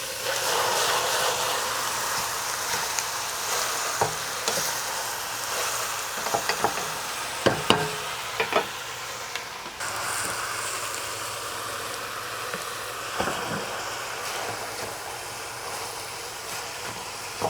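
A whole chicken sizzling in hot oil with sautéed onion and garlic in a pan: the sizzle surges as the chicken goes in and slowly eases as it browns. A few sharp knocks of handling in the pan come through it.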